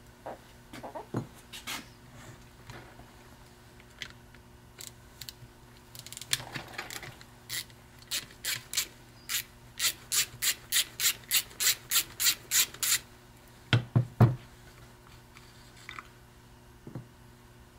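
Ratchet and socket backing out the long through bolts of a 12-volt Ford tractor starter: a run of sharp ratchet clicks, about three a second, for several seconds, then a couple of heavier knocks about two-thirds of the way in.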